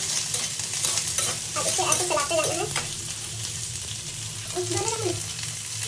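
Chopped onion, carrot and capsicum sizzling in hot oil in an iron kadhai, with a metal ladle stirring and scraping against the pan in irregular clicks.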